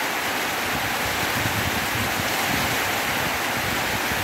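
Heavy tropical rain pouring down in a steady hiss, with a low rumble underneath.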